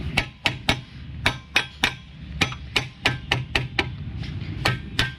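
Hammer tapping the steel brake drum of a Hyundai Grand i10 to seat it over the new brake shoes: about seventeen quick, sharp metal strikes, each ringing briefly, coming in three runs of about four a second.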